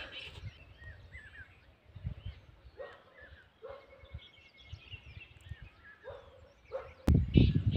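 Outdoor morning ambience with a few short animal calls and scattered bird chirps. A sharp knock comes near the end, followed by a burst of low rumbling noise.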